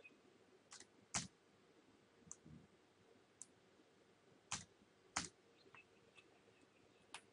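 Computer keyboard keystrokes and mouse-button clicks as numbers are typed into fields: about ten sharp, separate clicks at an uneven pace over faint room tone, two of them a good deal louder than the rest.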